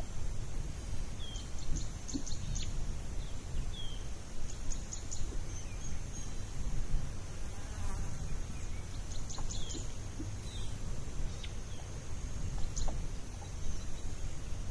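Insects buzzing steadily at a high pitch, broken every few seconds by quick runs of rapid ticking and a few short falling chirps, over a low wind-like rumble.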